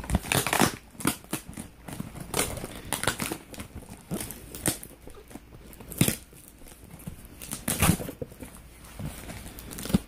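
Shipping package being pried and torn open down the middle by hand: irregular rustling, crinkling and scraping of packaging, with sharper crackling bursts about half a second in, at about six seconds and near eight seconds.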